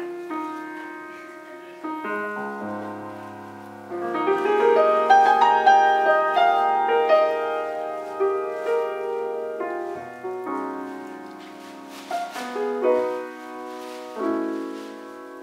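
Jazz piano playing slow, ringing chords that are struck and left to decay, louder through the middle and softer again toward the end.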